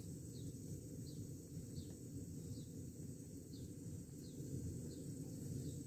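Small camping stove burning steadily under a steel pot of water, with a short high chirp repeating about every three-quarters of a second.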